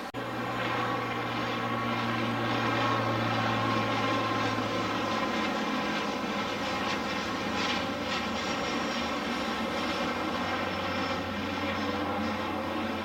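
Bombardier Dash 8 Q400 turboprop airliner flying low on landing approach, its two turboprop engines and propellers giving a steady drone with a low hum. It grows louder over the first couple of seconds, and the hum's pitch drops slightly about six seconds in as the aircraft passes broadside.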